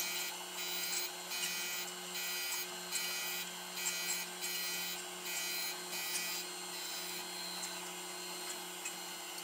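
Taft-Peirce surface grinder's wheel grinding a Bridgeport vise jaw: a grinding noise that pulses about twice a second over the steady hum of the spindle motor. The pulsing grind stops about six and a half seconds in, leaving the motor hum.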